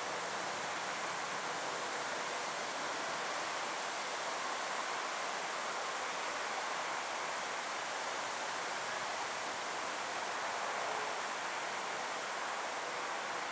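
Jet engines of an Airbus A330-200 at climb power, heard from a distance as a steady, even rushing noise with a faint steady tone in it.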